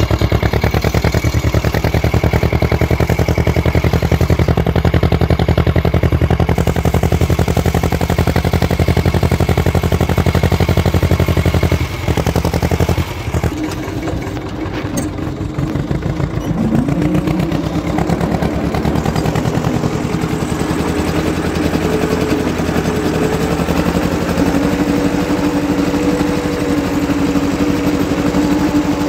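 Tractor engine running with a steady low throb. About twelve seconds in the sound dips briefly, then runs on as a steadier, higher hum while the tractor pulls a spring-tine cultivator through the soil.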